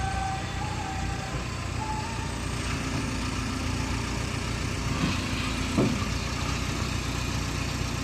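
Heavy diesel engine idling steadily, with two short knocks about five and six seconds in.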